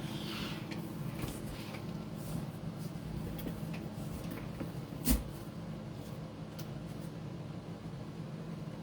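Steady low room hum with scattered faint clicks and rustles, and one sharp knock about five seconds in.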